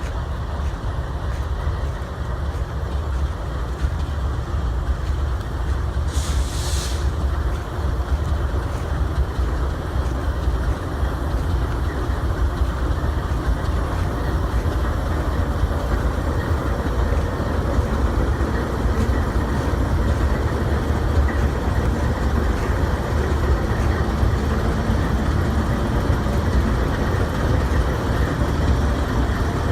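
Freight train rolling by, a steady rumble heavy in the low end, with a brief high hiss about six seconds in.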